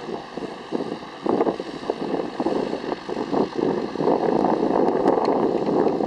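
De Havilland Chipmunk tow plane's propeller engine running ahead of the glider, getting louder about four seconds in.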